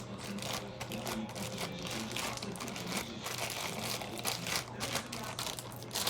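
Plastic bag crinkling and crackling irregularly as slime is squeezed and kneaded inside it.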